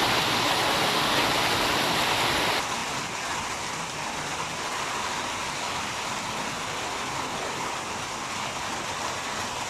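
Heavy rain falling, a steady dense hiss that drops suddenly to a lower level about two and a half seconds in.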